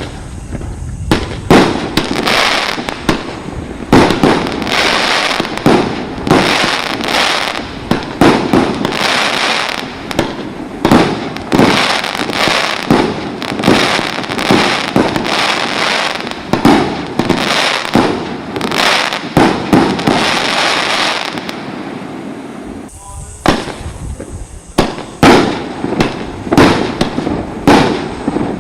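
Consumer firework battery (cake) firing shot after shot: a fast series of loud bangs with crackling between them, one to two a second, with a short pause about 22 seconds in before the shots resume.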